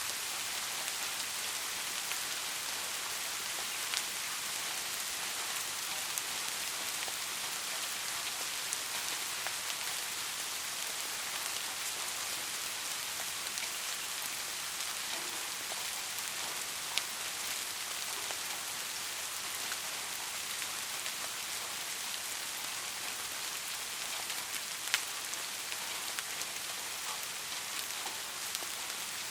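Steady rain falling on a surface, an even hiss with scattered individual drop ticks, a few sharper ones standing out.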